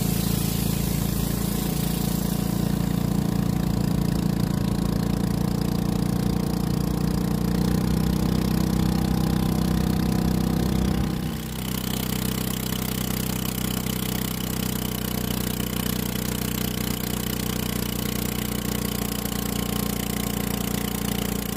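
Small boat engine running steadily. Its sound changes about halfway through, with the deep low end dropping away.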